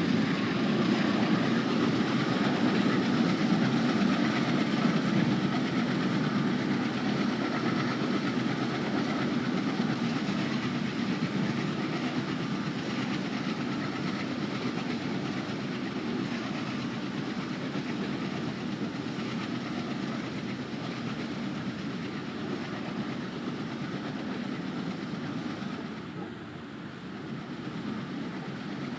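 Freight train of BCNHL wagons hauled by an Alco WDG-3A diesel locomotive, rolling on the rails with a steady rumble and clatter that slowly fades.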